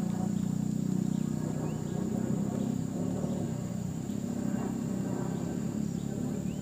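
A steady low engine-like hum with a constant high-pitched insect drone over it.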